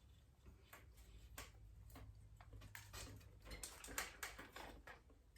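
Faint, irregular light taps on a padded bicycle crank arm, driving the crank arm off its bottom-bracket spindle. The taps come a little louder and closer together in the second half.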